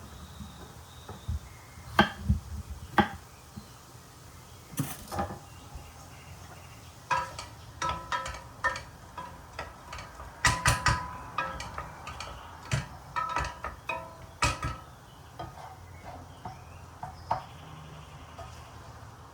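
Kitchen utensils and dishes clinking and knocking: scattered sharp knocks at first, then a busy run of ringing clinks in the middle, then a few light taps.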